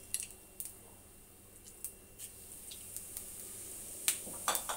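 Mustard and cumin seeds beginning to crackle in heating oil in a steel kadai: scattered sharp pops, the loudest about four seconds in, over a faint sizzle that slowly grows as the oil heats.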